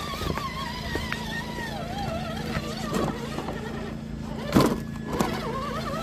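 Electric motor and gearbox whine of a 1/10-scale RC crawler truck, its pitch wavering up and down with the throttle. A sharp knock comes a little after four and a half seconds.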